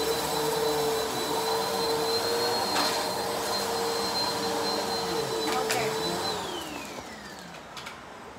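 Bissell PowerForce Helix Turbo upright vacuum cleaner running on a shag rug with a steady whine. It is switched off a little over six seconds in, and its motor pitch falls as it spins down. A couple of sharp clicks come through while it runs.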